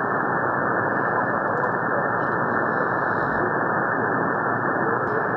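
Shortwave receiver hiss: steady band noise on the 80-metre amateur band, heard through a narrow sideband filter that cuts everything above about 2 kHz.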